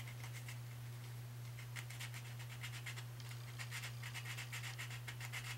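Small piece of sandpaper rubbing on the end of an enamelled copper magnet wire, a run of short scratching strokes, stripping off the enamel coating so the wire can be soldered. A steady low hum runs underneath.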